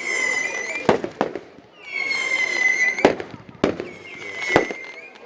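Fireworks display: high whistling fireworks, three long whistles that dip slightly in pitch, between about five sharp bangs of bursting shells.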